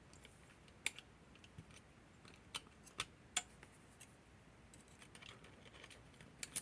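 Faint, scattered sharp metallic clicks and taps, about seven in all, as the small parts of a disassembled Hori 1601 lever padlock (levers and body) are handled and moved against each other.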